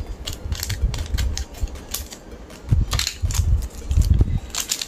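Foil Pokémon booster pack wrapper crinkling as it is cut open with scissors and handled: a run of sharp clicks and rustles, with a few dull thumps about three and four seconds in.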